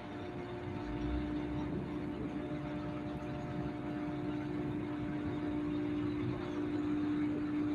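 Fishing vessel's engine running with a steady, unchanging hum.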